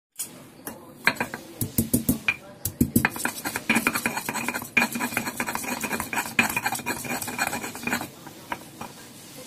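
Stone pestle (ulekan) pounding and grinding on a flat stone mortar (cobek), crushing small spice pieces into a paste: a quick run of knocks and scraping clicks that stops about eight seconds in.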